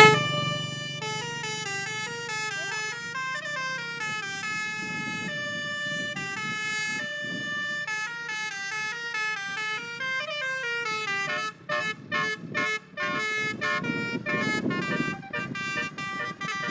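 Basuri 'telolet' multi-tone bus horn playing a tune of stepped, held notes, sounding a bit off-key and squawky ('ngak ngek ngok'). About two-thirds of the way through the notes turn short and choppy, with low rumbling noise underneath.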